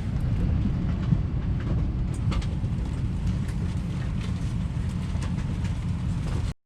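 Steady low rumble of a vehicle interior with scattered faint clicks and rattles, cutting off abruptly near the end.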